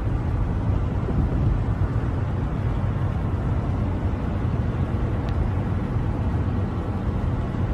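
Steady low rumble of a car on the move, heard from inside the cabin: engine and road noise.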